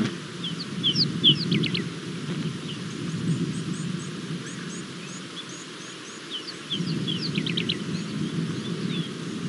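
Birds chirping: two bouts of quick sweeping chirps, the first about half a second in and the second past the middle, with a run of fainter high notes between them. A steady low rumble runs underneath and dips briefly just before the second bout.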